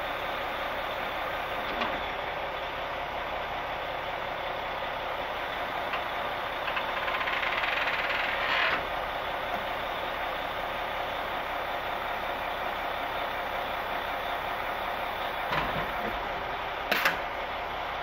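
Caterpillar C13 diesel engine of a concrete mixer truck idling steadily while the hydraulic fold-down chute folds up, with creaking from the moving chute. A louder rushing sound lasts for about two seconds, starting about seven seconds in, and a short knock comes near the end.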